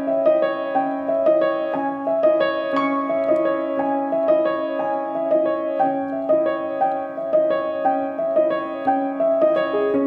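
Background piano music: a steady, even run of notes, about two or three a second.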